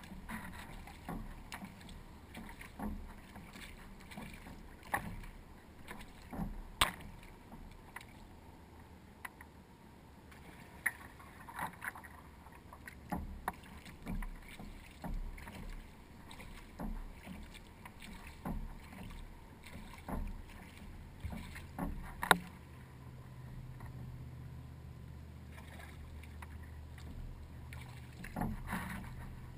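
Kayak paddling on calm water: the paddle blades dipping and splashing, with drips and short sharp clicks coming irregularly every second or two. A faint low steady hum joins about two-thirds of the way through.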